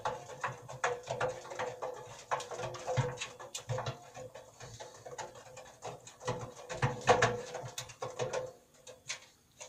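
Kittens scrambling and tumbling inside a stainless-steel washing-machine drum: a busy run of irregular scratches, clicks and knocks of claws and paws on the metal, over a faint steady hum, dying down near the end.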